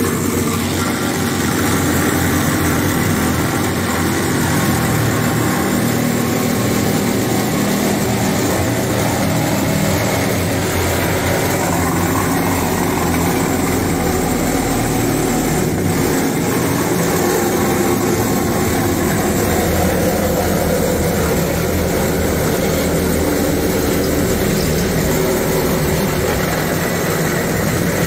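Ryobi ONE+ HP brushless compact reciprocating saw running steadily, its blade sawing through the rusty sheet-steel firewall of a Ford F100 cab.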